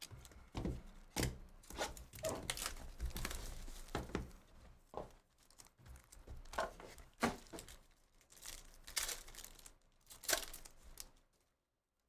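Packaging of a trading card pack being torn open and crinkled by hand, in a string of irregular crackles that stop just before the end.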